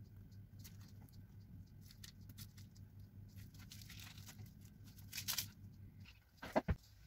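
Faint handling noises while decorating a cream-covered rolled cake: scattered light clicks, a brief rustle about five seconds in and two sharp taps near the end, over a low steady hum.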